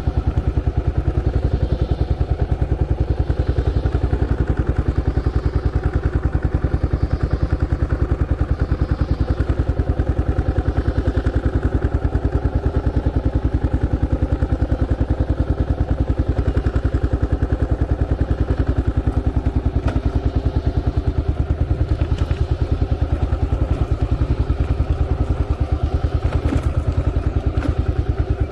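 A vehicle's engine running steadily while driving, with a dense, even pulsing rumble and a few light knocks and rattles from the road.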